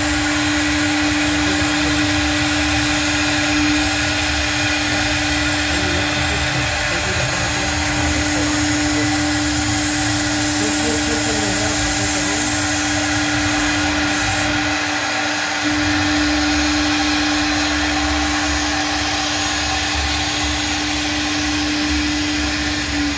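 CNC router spindle running at a steady high whine while the bit routes through a sheet as the gantry moves, with continuous cutting noise.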